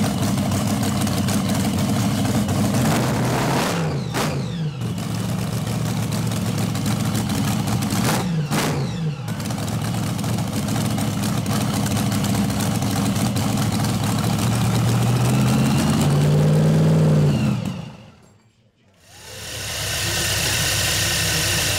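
Supercharged nitro-burning V8 of a nostalgia drag car running at a loud idle, blipped up and back down twice, then brought up once more before it shuts off about 18 seconds in. A steady hissing noise takes over near the end.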